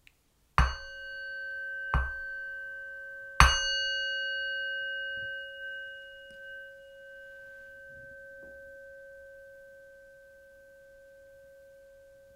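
A meditation bell struck three times, about a second and a half apart, marking the close of the practice; the last strike is the loudest, and its tone rings on and fades slowly.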